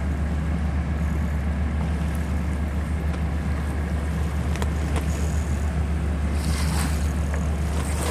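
Steady low drone of a boat engine running at a constant speed, with water noise over it and a brief hissing rush about six and a half seconds in.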